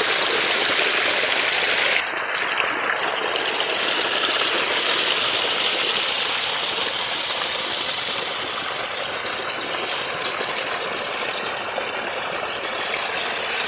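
Rain falling; about two seconds in, it gives way to the steady rush of flowing runoff water.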